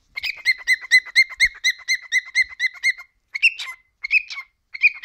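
A male cockatiel chirping: a fast, even run of short notes, about eight a second, for nearly three seconds, then three short separate warbled chirps.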